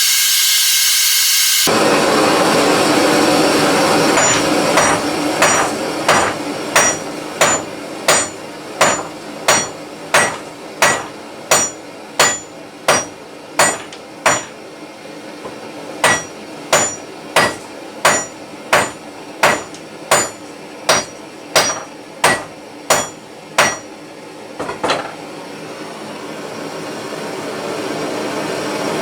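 Heavy ball pein hammer striking hot rebar in a steady rhythm, about one and a half ringing metallic blows a second with a short break midway, shaping it into a hook. A steady rushing hiss from the blow lamp runs underneath, and the torch's higher hiss is heard alone at the start and again at the very end.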